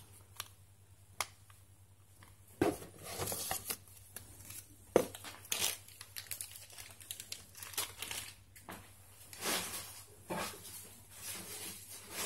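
Packaging being handled: crinkling, rustling wrapping and cardboard in irregular bursts that begin about two and a half seconds in, after a couple of light clicks.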